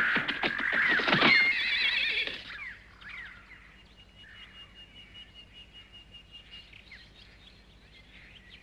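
Cartoon wild horse neighing loudly with a wavering whinny, among sharp knocks like hooves striking, for the first two and a half seconds or so: the unbroken horse fighting its rider. After that only faint high chirps are left.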